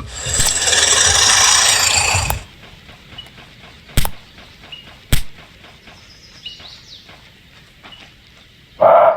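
A loud, harsh rasping noise for about two seconds, then two sharp clicks, and a single loud dog bark near the end.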